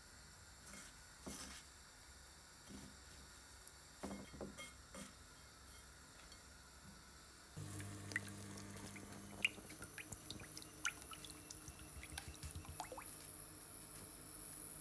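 Faint knocks of handling in the first half, then hot oil sizzling in a frying pan with a steady hiss and many small sharp crackles, starting suddenly about halfway in.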